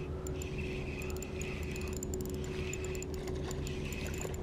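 Spinning fishing reel being cranked in short spells about once a second, its gears whirring and ticking, as a surface lure is retrieved.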